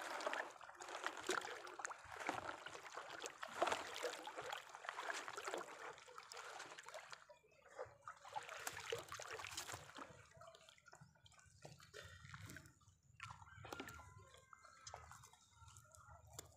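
Water dripping and sloshing as a wet mesh fishing net is hauled in over the side of a small boat, with many irregular drips and splashes that thin out and grow quieter after about seven seconds.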